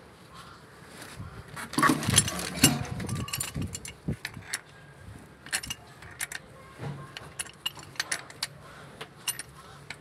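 Metal clinks and knocks of a pipe wrench being handled and set onto a threaded metal pipe fitting, with a dense cluster of clanks about two seconds in, then scattered sharp clicks.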